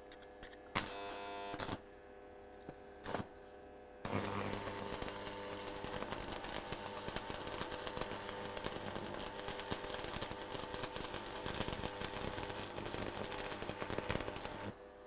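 Stick (arc) welder: two brief arc strikes, then about ten seconds of continuous arc crackle with the welding transformer humming underneath, cutting off abruptly near the end.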